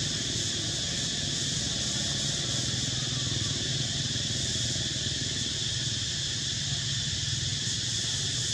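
Steady outdoor drone of insects, high and unbroken, over a low steady hum.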